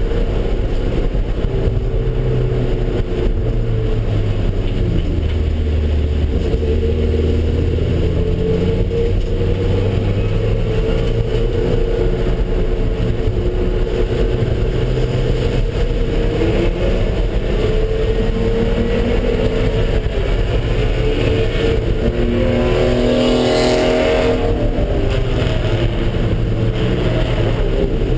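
Car engine running hard around a race track, its pitch rising and falling as the driver works the throttle, brakes and changes gear. A higher, rising engine note swells and fades about 23 seconds in.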